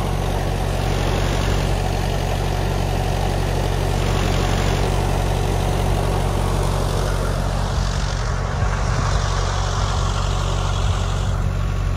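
An engine running steadily at a constant speed, a low even hum with no revving.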